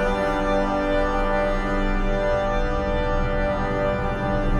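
Background music: sustained organ chords held steadily.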